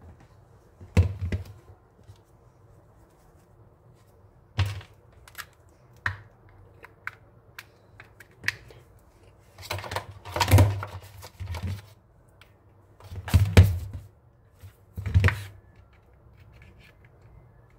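Handling noise from a plastic power bank, its cable and a phone: irregular clicks, taps and knocks, with louder clustered bumps about a second in, around the middle and near the end.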